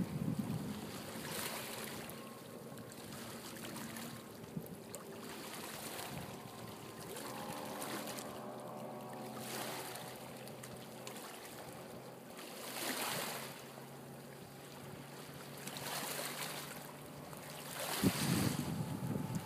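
250 hp Mercury outboard running steadily as the boat moves across the water, with water rushing and splashing along the hull in swells every few seconds. The splashing is strongest near the end.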